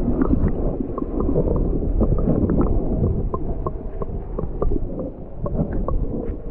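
Creek water heard through an action camera held underwater: a muffled, low noise of moving water with small sharp clicks scattered through it, a few a second.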